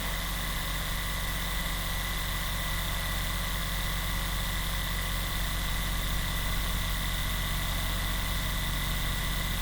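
Percussion massage gun running steadily: a continuous buzzing motor hum with a thin high whine.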